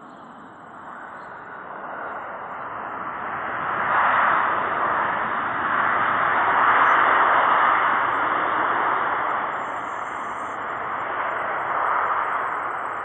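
A jet airliner passing: its engine noise builds over the first few seconds to a loud peak around the middle, then eases off, with a smaller second swell near the end.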